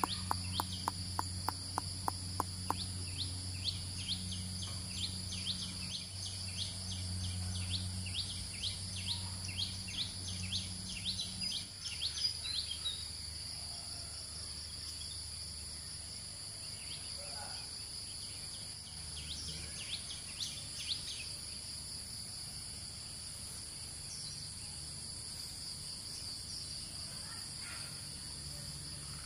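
Forest insects droning steadily at a high pitch, with a rapid run of clicking chirps in the first few seconds and repeated chirps for about the first half. A low hum underneath drops away about twelve seconds in.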